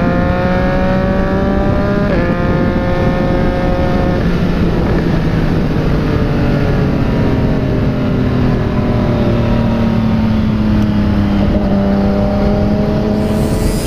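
Yamaha MT-09's three-cylinder engine through a replica Akrapovic exhaust under acceleration. It upshifts right at the start and again about two seconds in, the note dropping each time and then climbing. The engine note then falls slowly for several seconds as the throttle is eased off, and picks up again near the end, over steady rushing wind noise.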